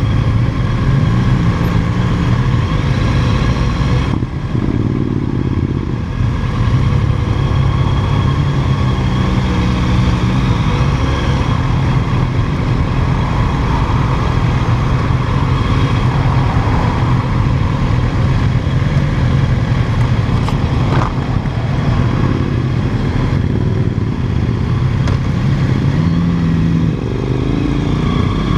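Sport motorcycle's engine running at road speed, heard from a mount on the bike with wind rushing past. Its revs rise and fall several times as the throttle is opened and closed.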